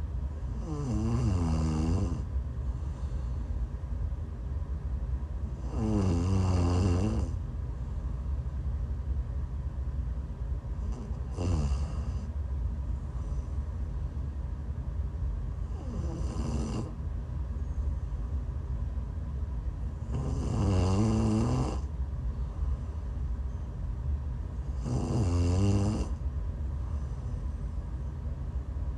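A woman snoring in her sleep while ill: six pitched snores, about one every five seconds, each a second or two long.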